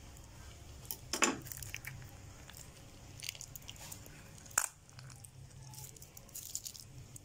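Plastic piping bag of pink slime being squeezed into liquid in a glass bowl: soft squelches and plastic crackles, with a few sharp clicks, the strongest about a second in and a single sharp click a little past halfway.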